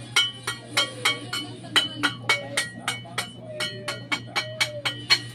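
A metal tool striking concrete hollow blocks in a quick, even run, about four strikes a second, each with a short metallic ring.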